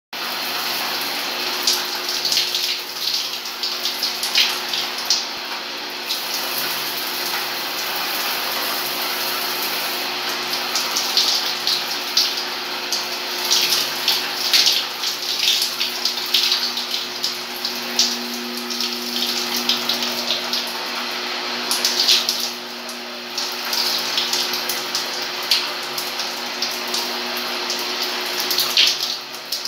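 Shower running: a steady hiss of water spray, with uneven splashing as the water hits a person standing under it.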